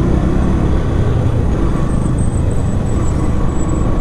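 Yamaha FZ motorcycle riding through city traffic: steady engine and road noise with the traffic around it.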